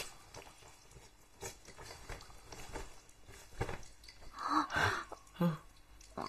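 Faint rustling of cloth as a bloodied robe is pulled open off a wounded man lying on a bed. Near the end come a couple of short breathy sounds, like a gasp, and a brief low grunt.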